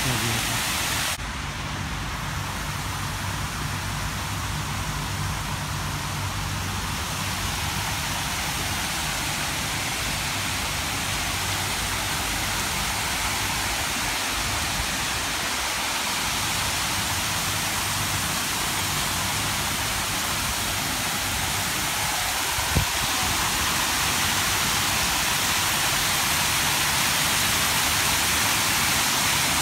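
Rows of small fountain jets splashing into a shallow pool, a steady rushing spatter throughout, with one brief knock late on.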